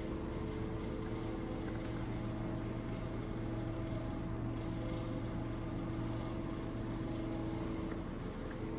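Steady machine hum: a low drone with several constant higher tones over it, unchanging throughout.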